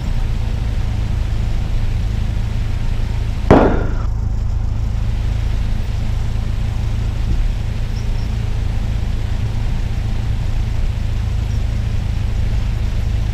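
Cessna 172's piston engine and propeller running steadily on the ground as a low drone. About three and a half seconds in there is a single brief sharp click.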